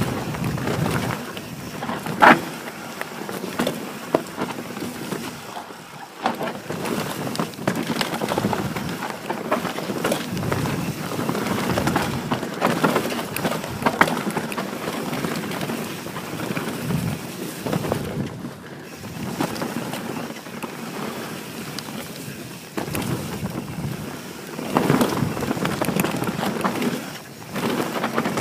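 Santa Cruz Bronson mountain bike descending a dirt forest singletrack: the knobby tyres roll and crunch over dirt and roots, and the bike rattles and knocks over bumps. The sharpest knock comes about two seconds in, and there is wind noise on the microphone.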